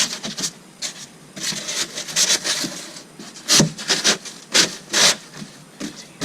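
Insulation pieces being pushed and rubbed into wooden wall framing: a run of irregular scraping rubs, the loudest few strokes about three and a half to five seconds in.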